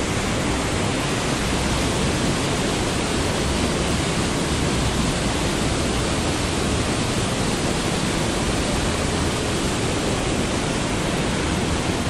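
Waterfall stream rushing fast over granite boulders: a steady, unbroken roar of white water running strong.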